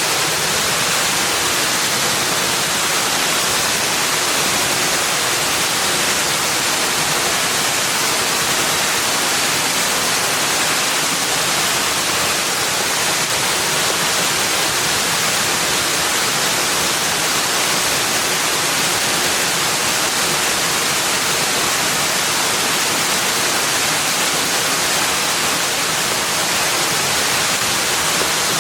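Steady rushing of running water, an even hiss with no distinct splashes or changes.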